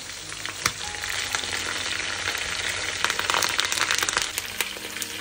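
Boneless chicken pieces and freshly added curry leaves frying in hot sunflower oil in a frying pan, sizzling with many sharp crackles. The sizzle grows louder about a second in.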